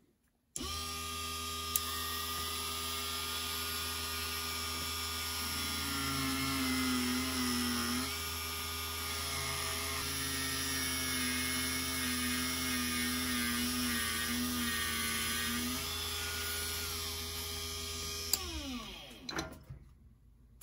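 Small high-speed rotary tool buffing a metal HO-scale model locomotive wheel. It starts about half a second in and runs steadily, its pitch wavering in the middle stretch, then is switched off near the end and winds down with a falling pitch.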